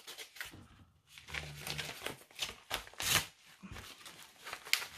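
Plastic shipping packaging rustling and crinkling as small items are unwrapped and handled, in a series of short, scratchy rustles and light taps.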